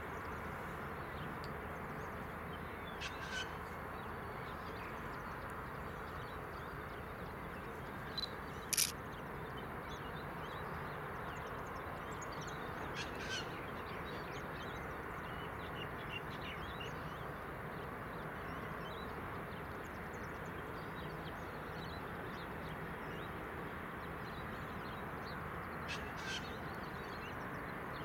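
Steady low hum of a distant idling diesel locomotive standing at a signal, with a few short harsh bird calls and one sharp click over it.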